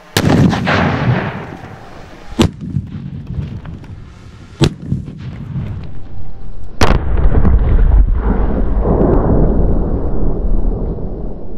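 Explosive charges in paint buckets going off: a big blast at the start that dies away slowly, sharp cracks about two and a half, four and a half and seven seconds in, then a long low rumble.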